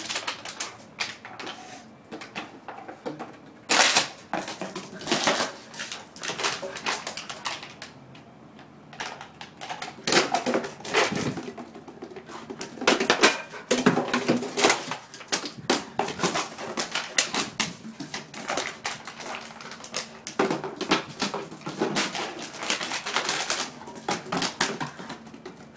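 Empty plastic water bottle being mouthed and batted across stone tiles by a Rhodesian ridgeback: irregular crackling and clattering, in clusters of quick clicks.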